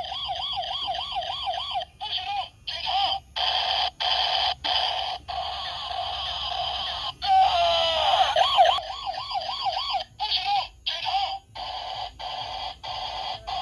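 Battery-powered toy revolver's electronic sound effect: a warbling, siren-like tone from its small speaker, starting and stopping in repeated bursts. A louder burst of sweeping tones comes about seven to nine seconds in.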